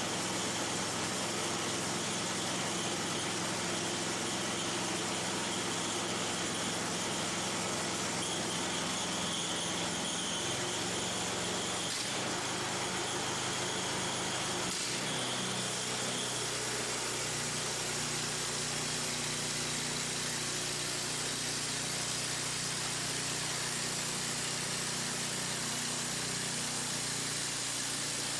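Gas-engine portable band saw mill running steadily, its band blade starting to cut along an old barn beam. The engine note changes about halfway through as the saw head begins moving down the beam.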